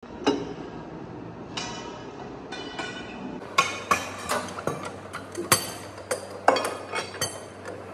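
Sharp metallic clinks and clanks with a ringing tone from a socket wrench and a long steel pipe extension working a truck's wheel nuts loose by hand. There are a few strikes at first, then from about three and a half seconds in they come quickly, several a second.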